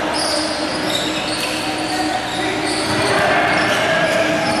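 Basketball being bounced on the hardwood court, with short high squeaks of sneakers and voices echoing around the gym.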